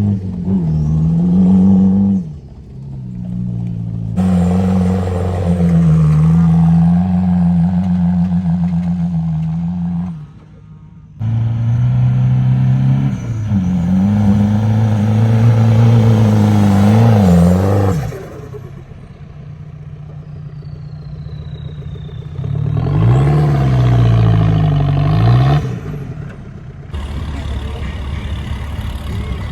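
Turbodiesel engine of a TDI-swapped Ford Ranger revving up and down repeatedly as the truck is driven through soft sand, in several stretches that change abruptly from one to the next.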